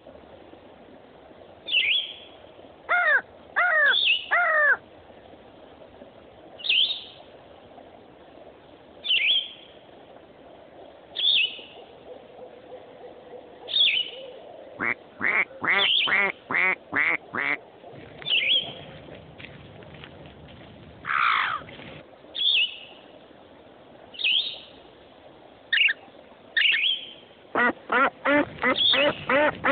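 Birds calling: short, harsh calls with falling pitch, some single and some in quick runs of five or six, over a faint steady background noise.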